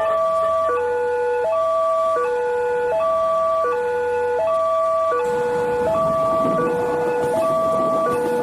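Railway level-crossing warning siren sounding a two-tone hi-lo wail, the two pitches alternating about every three-quarters of a second. About five seconds in, a broad rumbling noise joins under it.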